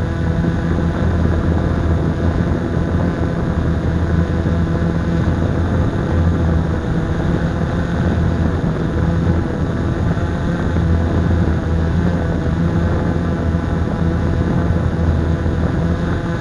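Blade 350 QX quadcopter's four brushless motors and propellers running steadily, heard from the camera mounted on the drone itself: a loud, even buzzing hum of several tones that waver slightly in pitch.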